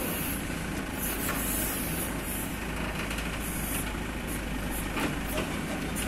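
JCB 3DX backhoe loader's diesel engine running steadily under working load.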